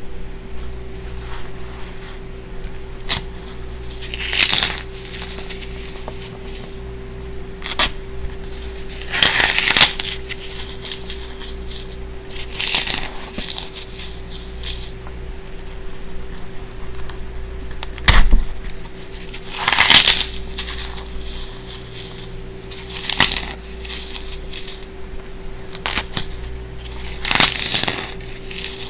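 Dry floral foam crunching as gloved fingers crush and crumble it, in about seven separate bursts a few seconds apart, with one sharp crack about 18 seconds in.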